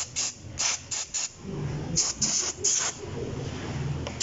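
Cleaning a car battery terminal: a few quick rubbing strokes, then short hissing bursts of terminal cleaning spray about two seconds in.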